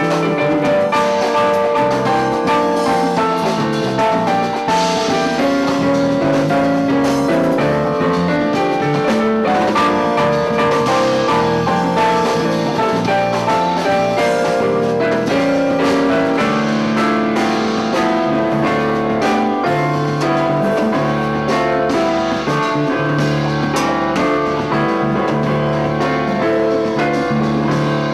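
Live Latin band playing an instrumental passage, an electronic keyboard with a piano sound taking the lead over bass, drums and percussion.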